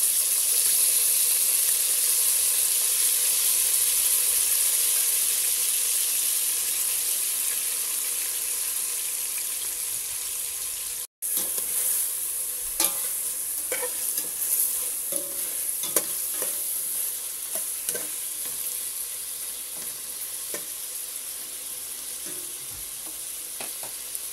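Boiled beef pieces sizzling in hot oil with sautéed garlic and onion in a stainless steel pot. The sizzle jumps up at the start and slowly fades. In the second half a spatula scrapes and clicks against the pot as the beef is stirred.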